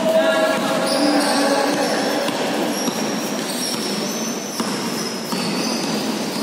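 A basketball being dribbled on a hard indoor court, its bounces heard over a steady hubbub that echoes in the large hall.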